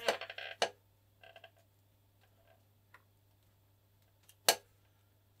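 Small handling sounds at a workbench: a few faint clicks and one sharp tap about four and a half seconds in, over a low steady hum.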